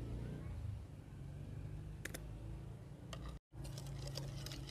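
Faint light clicks of a metal spoon against a plastic bowl while stirring a marinade: a single click about two seconds in and a quick run of clicks near the end.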